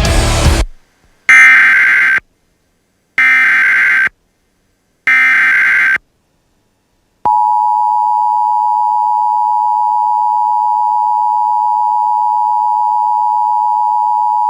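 Emergency Alert System activation: three short SAME data-header bursts about a second apart, then the steady two-tone EAS attention signal starting about seven seconds in. A bit of music ends just before the first burst.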